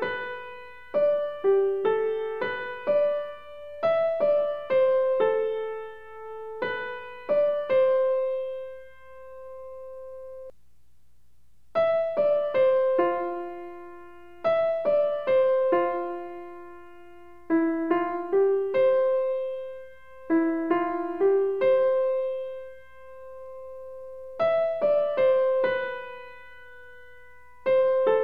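Background piano music: a slow melody of single struck notes, each fading, with a brief break about ten seconds in.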